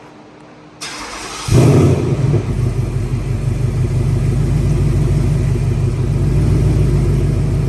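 2018 Ford Mustang GT's 5.0-litre V8 with aftermarket headers, warm start: the starter cranks briefly about a second in, and the engine catches with a loud flare. It then settles into a steady, pretty loud idle.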